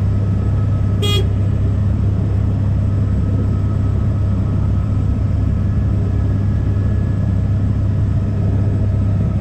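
Helicopter in flight: the rotor and engine keep up a steady, loud drone. A single short beep sounds about a second in.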